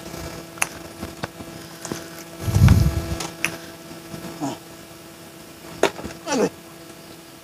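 A nylon gill net being handled on wet concrete while climbing perch are picked out of it: scattered clicks and rustles, with a dull thump about two and a half seconds in. A faint steady hum runs underneath.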